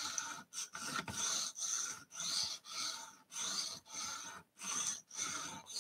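A 220-grit aluminum oxide stone on a guided-rod knife sharpener being stroked back and forth across the steel edge of a Spyderco Paramilitary 2 blade. It makes a light scraping, about two strokes a second.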